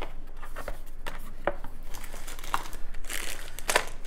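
Board game box contents and packaging being handled: scattered light taps with crinkling rustles, busier about three seconds in.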